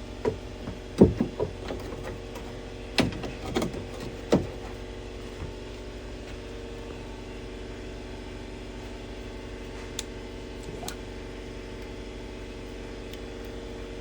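Jeep TJ door latch and its parts being handled, with a few sharp clicks and knocks in the first four seconds and two faint ticks near the end, over a steady hum.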